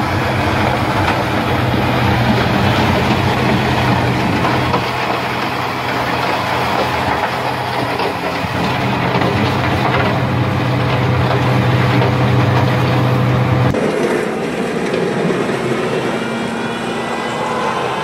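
Wheel loader's diesel engine and its front-mounted snowblower attachment running steadily under load while blowing snow, a loud, even hum with a dense rush on top. About fourteen seconds in the sound changes abruptly to a different wheel loader's engine working as it pushes snow with a blade.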